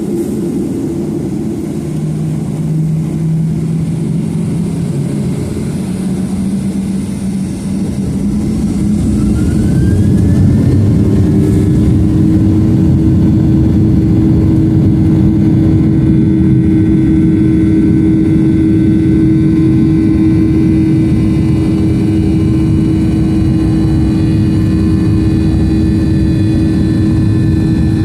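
Boeing 737-800's CFM56-7B jet engines heard from inside the cabin, spooling up to takeoff thrust: the sound rises with a short upward whine about a third of the way in, then runs loud and steady with a deep hum and several high whining tones through the takeoff roll.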